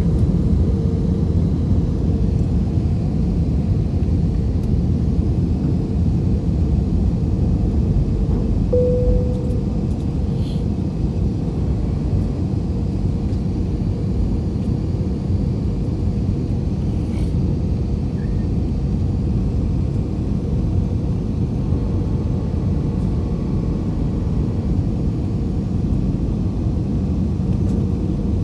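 Jet airliner cabin noise on descent, heard from a window seat over the wing: a steady low rumble of engines and airflow. A faint steady hum sits above it, swells briefly about nine seconds in, and then the overall level eases slightly.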